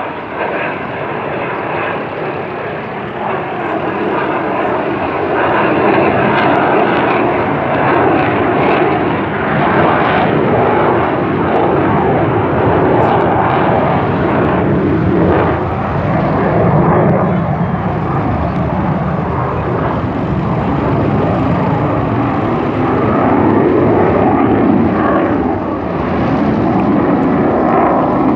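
Military jet aircraft passing overhead: a heavy jet-engine noise that builds over the first few seconds, then holds loud.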